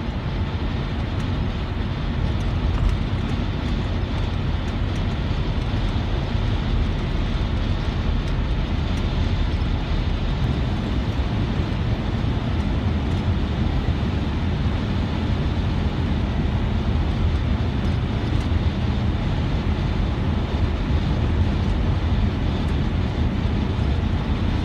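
Steady road noise of a car driving on the highway, heard inside the cabin: an even low rumble that does not change.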